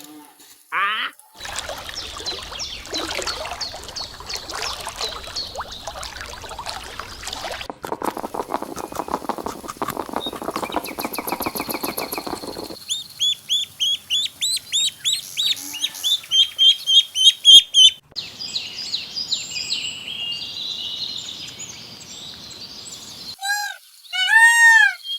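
A run of different animal calls cut one after another: a dense stretch of many overlapping calls, then a fast run of rapid calls, then repeated short, high bird-like chirps, and near the end a few loud rising-and-falling cries.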